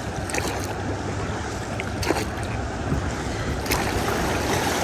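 Steady rush of river water around a boat drifting down through easy Class 1 rapids, with wind buffeting the microphone and a few faint knocks.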